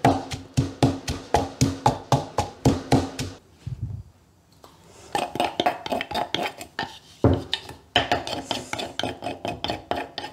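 Wooden pestle pounding chilies, garlic and salt into a paste in a deep mortar, about four steady knocks a second. After a short pause, a metal spoon scrapes and clinks around the inside of the mortar, getting the paste out.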